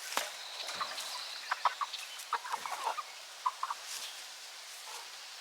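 Backyard chickens clucking, with short scattered clucks coming in small clusters.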